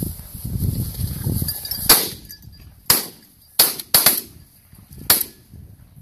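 Shotguns fired several times: about five sharp reports spread over three seconds, starting about two seconds in, the first the loudest, each with a short echo.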